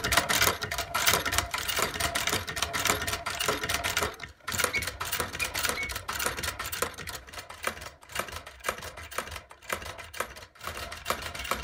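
Singer 29K leather patcher sewing machine running, a fast, steady clatter of needle strokes with a few short breaks.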